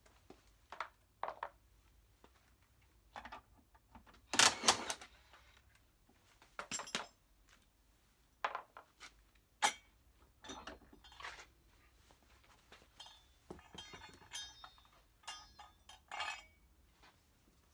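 Scattered metallic clinks, clicks and thunks of tools and parts as a spare tire is unbolted from its tailgate carrier and lifted off, with a louder double clatter about four and a half seconds in and a run of ringing clinks near the end.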